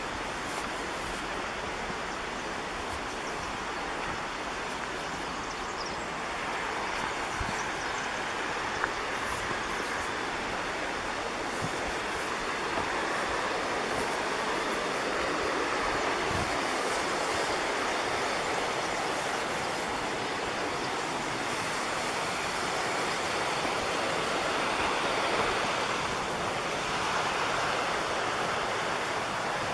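Steady rush of flowing creek water, growing a little louder partway through.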